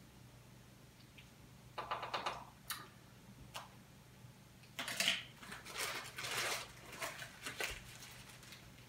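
A plastic bag of corn sugar crinkling and a measuring spoon clicking as sugar is scooped out and tipped into bottles. The crinkles and clicks come in several short spells, the busiest a little past the middle, over a low steady hum.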